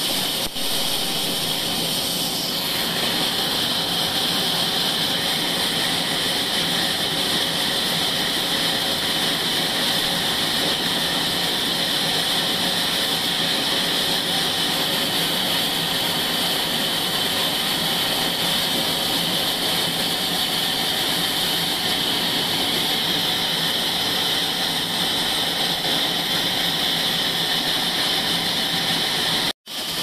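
Horizontal band sawmill running, its blade cutting lengthwise through a log: a steady, unchanging hissing whine, strongest in the high range. It breaks off for a moment just before the end.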